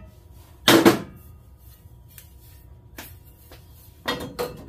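A notched steel plate knocking against a motorcycle's steel frame tubes as it is set in for a trial fit: one loud clank about a second in, a light tap near three seconds, and a few more knocks near the end.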